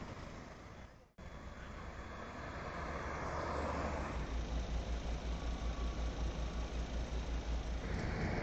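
A motor engine running steadily, with a low throb that pulses about four times a second and grows from about four seconds in. In the first second, road traffic noise fades out abruptly.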